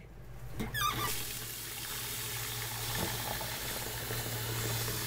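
Kitchen tap running into a ceramic bowl in a stainless steel sink, the water starting about a second in after a brief squeak, over the steady low hum of a stove vent fan.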